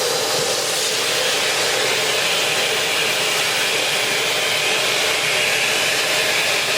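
Eureka Floor Rover upright bagless vacuum cleaner running with the crevice tool on its hose, a steady rush of suction and motor noise. A whistling airflow tone dips slightly in pitch and rises again near the end as the tool's opening meets the surface.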